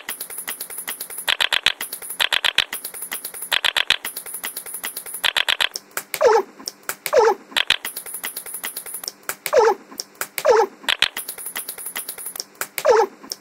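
Looped, edited experimental sound: a fast, irregular stream of sharp clicks, with short repeating blocks of hiss in the first half, then falling swooping tones, mostly in pairs, from about six seconds in.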